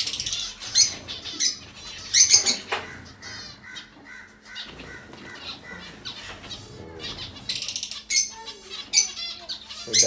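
Zebra finches calling: a string of short, high calls throughout, with a run of quickly repeated notes about three to five seconds in, mixed with brief wing flutters.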